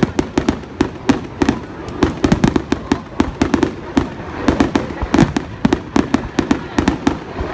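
Aerial fireworks going off in a rapid barrage: sharp, overlapping bangs, several a second, without a pause.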